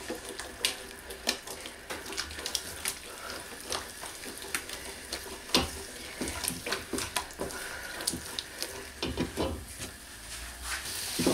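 Wooden spoon stirring a thick, hot flour-and-oil roux in a stainless steel pot, scraping and knocking irregularly against the pot's sides and bottom, over a faint sizzle.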